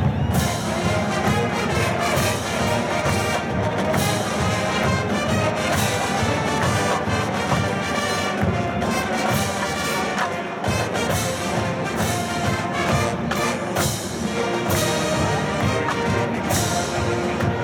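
A marching band's brass and drumline playing live in an open stadium, a full brass sound over a steady drum beat.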